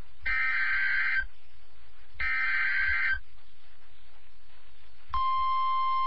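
NOAA Weather Radio Emergency Alert System transmission: two roughly one-second bursts of raspy digital SAME header data tones, a second apart. About five seconds in, the steady 1050 Hz warning alarm tone starts, the signal that an urgent weather warning follows.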